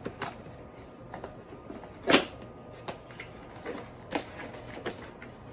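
Hair dryer packaging being opened and handled: scattered light clicks and rustles, with one louder sharp crack about two seconds in.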